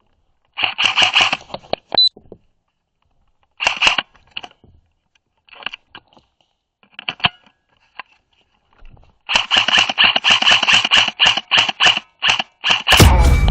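Airsoft rifle firing in short bursts and single shots, then a longer run of rapid shots near the end, each shot a sharp clack.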